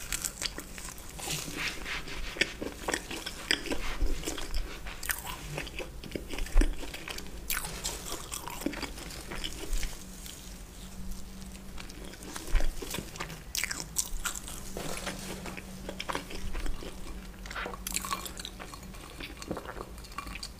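Close-miked chewing and biting: crunchy, wet mouth noises of a person eating, heard as an irregular run of sharp little clicks and crackles.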